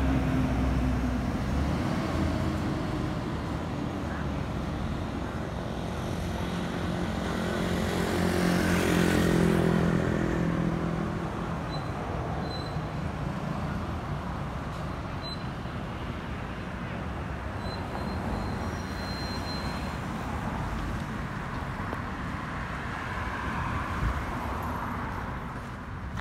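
Airbus A320's CFM56 jet engines passing overhead: a rushing rumble that builds to its loudest about nine seconds in, where the whine drops in pitch as the aircraft goes by, then fades away, over steady road traffic.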